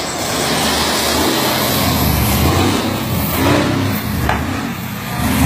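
Diesel engine of a bobtail semi-truck tractor pulling away under acceleration, its low rumble building and then swelling and dipping.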